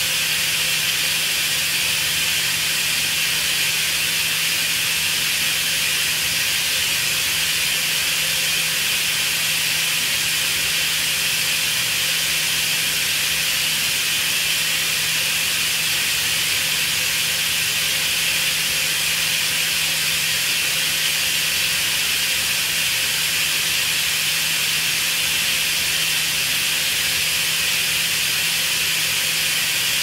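Compressed air escaping in a steady, unbroken hiss, with a low steady hum beneath it.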